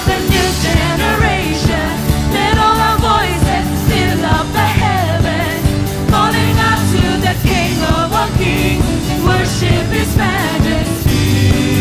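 Live worship band music: singers with a full band of bass and drums, the vocal lines bending and held over a steady beat.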